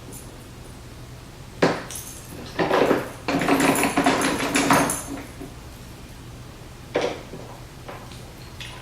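Metal clinks and knocks as a screwdriver and the metal stand parts are handled while screwing the stands onto a vanity mirror. There is a sharp knock about two seconds in, then a few seconds of rattling clatter, then a single knock near the end.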